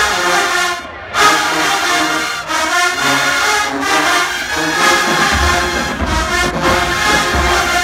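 Marching band brass section playing loud sustained chords, with a short break about a second in and bass drums coming back in near the end.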